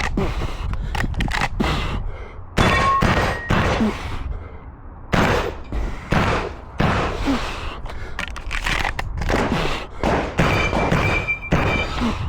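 Shotgun fired in a string of sharp reports at uneven intervals, with handling noise between the shots during a timed practical-shooting stage.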